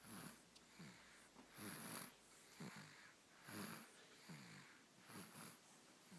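A sleeping two-month-old snoring softly, a rough snore on each breath in and a weaker one on each breath out, about every second and a half to two seconds.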